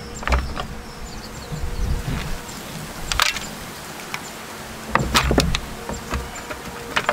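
Vegetables being handled and set down on a countertop: a few knocks and thumps, one just after the start, one about three seconds in and two close together around five seconds, over a faint steady hum.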